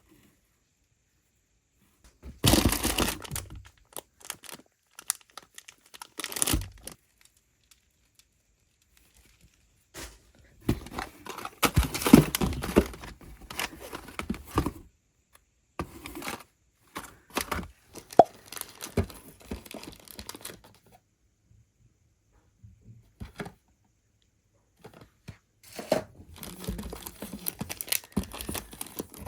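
Packaging being torn open and crinkled by hand: bursts of tearing and rustling with quiet gaps between them, the longest stretch about ten to fifteen seconds in.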